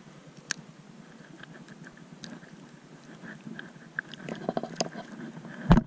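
Scattered small clicks and knocks, thickening into a quick run of ticks about four seconds in, then a loud knock near the end.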